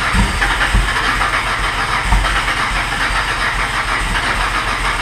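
Hyundai Tiburon engine running with a steady low pulsing and a few heavier low thumps. It runs funny, which the check engine light puts down to a worn crankshaft position sensor.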